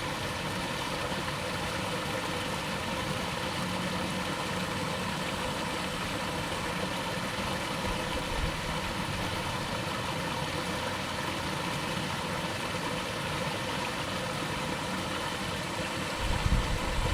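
Small waterfall running: a steady, even rushing of falling water. A brief low rumble rises over it about a second before the end.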